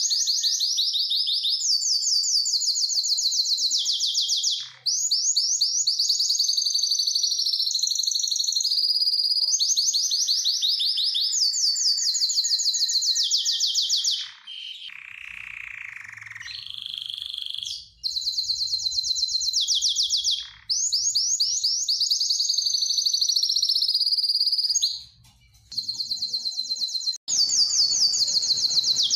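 Male domestic canary singing a long, high-pitched song of rapid trills and rolls, the phrases running almost without a break; a softer, lower phrase comes about halfway, and there are brief pauses between phrases.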